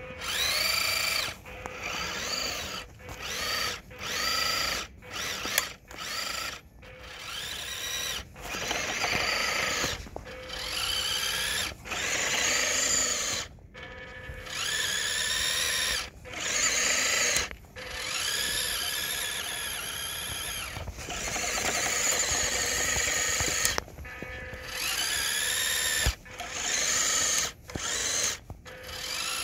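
Small electric motor and gearbox of a WPL 1/10 Suzuki Carry RC truck whining in repeated bursts of throttle, its pitch rising and falling with each burst, with a longer run in the second half. The rear-wheel-drive truck is struggling for grip in snow.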